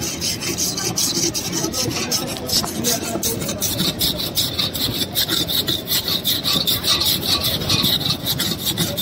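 Hand-held metal ice scraper rasping across a block of ice in quick, even back-and-forth strokes, shaving ice for an ice gola.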